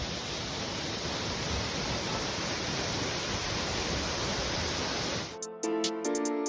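Steady rushing of a waterfall, an even full-range roar that cuts off suddenly about five seconds in, when music starts.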